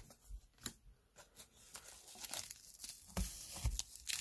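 Paper wrapper of a 1992-93 O-Pee-Chee hockey card pack being torn open and crinkled in the hands. Scattered crackles grow denser and louder near the end.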